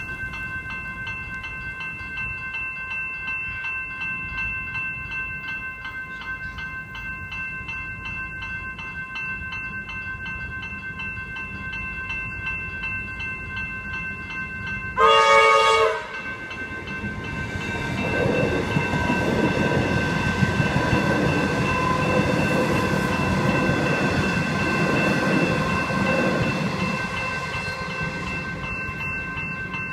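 Level-crossing electronic bells ringing steadily while a Comeng electric train blows one loud horn blast, about a second long, about halfway through. The train then passes for about ten seconds, its rumble swelling and fading, and the bells stop near the end.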